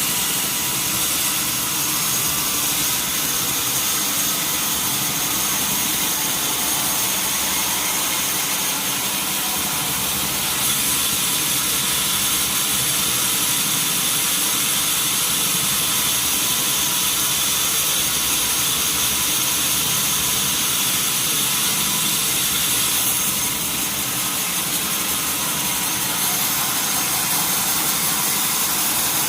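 Sawmill machinery running steadily: a loud, even noise with high whining tones. It grows brighter about ten seconds in and eases a little after twenty seconds.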